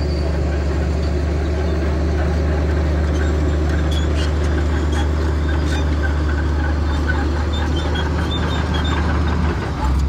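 Bulldozer's diesel engine running steadily, a deep even hum, with short high squeaks and clinks from about four seconds in. The engine note dips briefly near the end.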